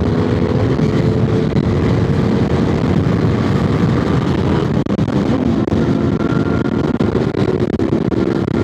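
Motorcycle engine running steadily at road speed, mixed with wind noise; the engine note shifts slightly about halfway through.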